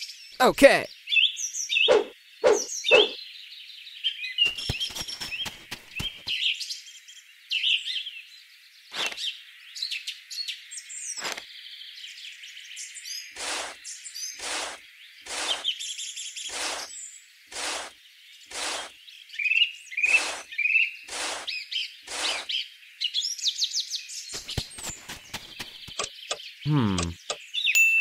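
Small birds chirping and tweeting throughout, with a run of short, evenly spaced taps about every three-quarters of a second in the middle and a brief falling sweep near the end.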